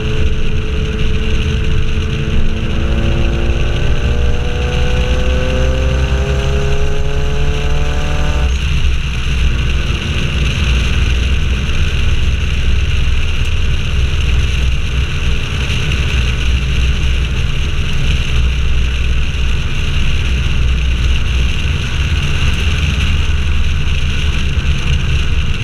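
Car driving at speed, heard with wind on an outside-mounted microphone: the engine note rises steadily for about eight seconds, then drops away suddenly, leaving a steady low rumble of wind and road noise with the engine running on underneath.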